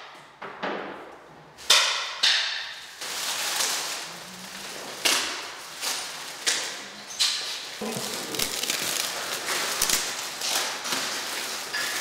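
Plastic wrapping being pulled off framed pictures and crumpled, crinkling and rustling with irregular sharp crackles.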